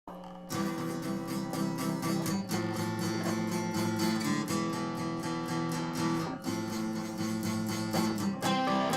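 Acoustic guitar strumming chords in a steady rhythm, the instrumental intro of a singer-songwriter's song; it begins abruptly out of silence.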